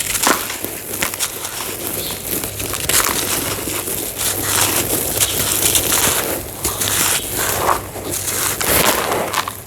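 Dry homemade cement being crushed and crumbled, a continuous gritty crunching and crackling made of many small sharp cracks.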